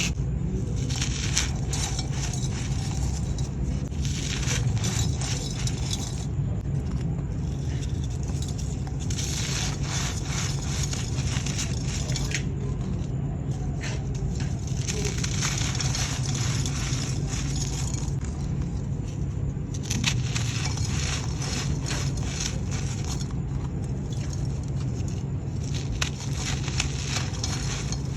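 Dry, grainy sand-cement claypot pieces being crumbled: crunchy, gritty crackling that comes in spells with short lulls between them, over a steady low hum.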